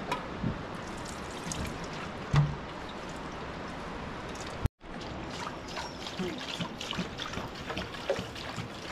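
Water poured from plastic jugs into metal pots, trickling and splashing, with one short knock about two and a half seconds in. The sound breaks off abruptly about halfway through and then the pouring continues.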